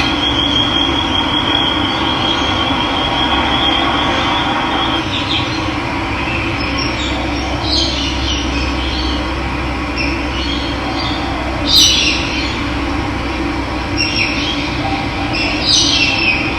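Running water making a steady rushing sound, with birds chirping over it in short calls, loudest about twelve seconds in and near the end. A thin, steady high tone runs through the first few seconds.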